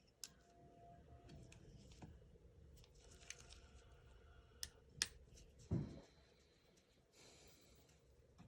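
Quiet handling sounds: a few sharp clicks, the loudest about five seconds in, followed by a short low knock and a brief soft rustle.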